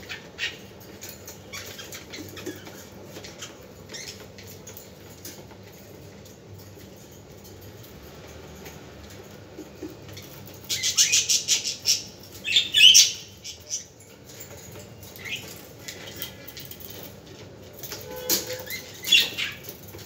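Caged budgerigars chirping and squawking in short, sharp bursts, with wing flutters among them. The loudest is a rapid flurry about eleven seconds in, with more calls soon after and near the end.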